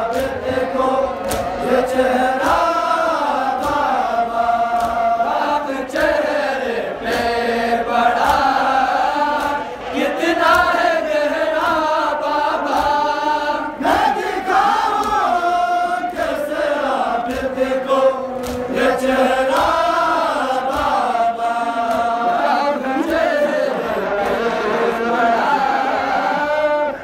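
Voices of mourners chanting a nauha, a lament for Ashura, in a continuous melodic line.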